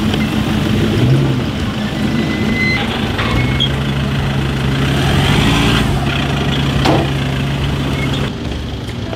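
Engines of lifted 4x4 pickup trucks running low and steady as they crawl over a rocky track, with a couple of knocks.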